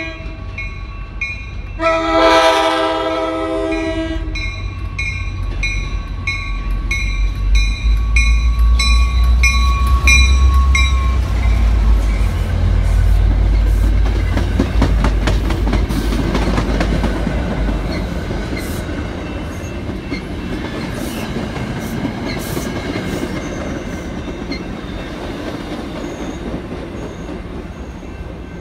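MBTA commuter train's diesel locomotive blowing its chord horn in one blast about two seconds in, with a bell ringing rapidly. The engine rumbles past, then the bilevel coaches roll by with wheels clicking over rail joints, fading slowly near the end.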